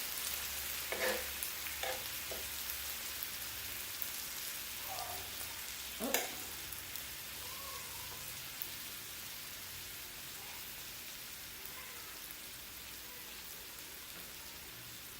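Thin-sliced lamb sizzling on a grill, a steady hiss, with a few short taps about one, two and six seconds in, the one at six seconds the loudest.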